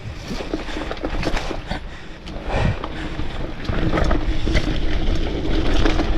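Wind rushing over the camera microphone, with tyres on dirt and clicks and rattles from a mountain bike rolling downhill. The wind rumble grows louder about four seconds in as the bike picks up speed.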